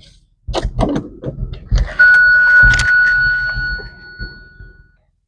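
A few short knocks and clatter, then a single bell-like chime about two seconds in that rings on one clear pitch and fades away over nearly three seconds.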